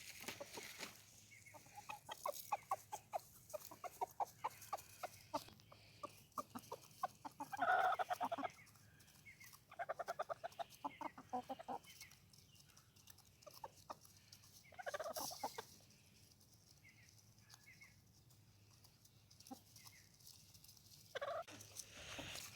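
Chickens clucking in quick runs of short notes, with a few louder calls in between.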